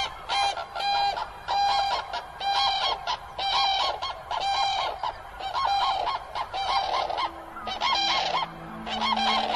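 A mated pair of common cranes giving their unison call: a rapid, loud series of calls, about two to three a second, in close synchrony.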